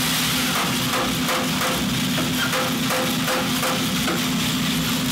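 Commercial drum coffee roaster running hot: a steady hum from its motor and fan under an even hiss, with a faint regular ticking about three times a second.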